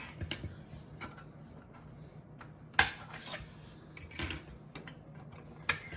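Drive-bay fillers being unclipped and pulled from the front drive slots of an HPE ProLiant DL360 Gen10 server: a run of small clicks and light clatter, with two sharp snaps, one about three seconds in and one near the end.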